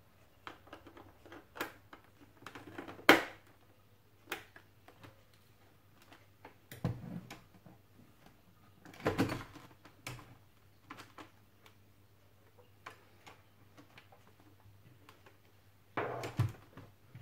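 Clicks, taps and knocks of hard plastic as a visor and its side pivot parts are fitted back onto an LS2 modular motorcycle helmet. The loudest is a sharp click about three seconds in, and longer handling noises follow near seven, nine and sixteen seconds.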